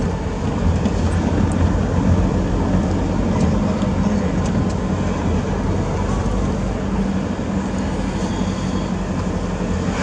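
Steady road noise inside a moving car: the engine's low hum and the hiss of tyres on a wet road.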